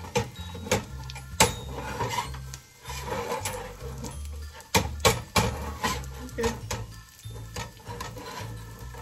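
Cooking utensil knocking and scraping against a pan in irregular sharp clicks, with music playing underneath.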